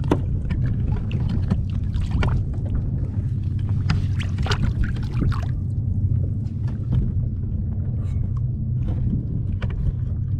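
Water splashing and lapping against a kayak hull at sea, with short irregular splashes over a steady low rumble.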